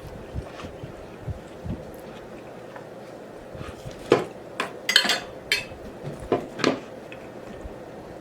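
Sounds of eating at a table: faint small ticks, then a quick run of sharp clicks and clinks about halfway through.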